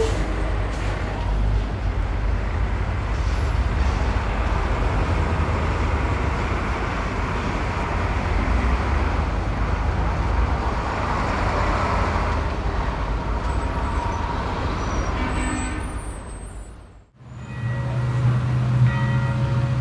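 City street traffic ambience, medium to heavy: a steady wash of passing cars with a deep rumble. It fades away about sixteen seconds in, and a different steady low hum begins near the end.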